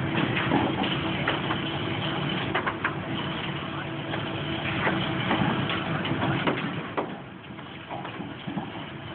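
Machinery running steadily with scattered metallic knocks and clanks, getting somewhat quieter after about seven seconds.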